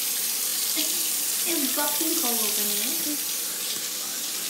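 Kitchen tap running steadily into a sink, a constant hiss of water, with a faint voice briefly in the middle.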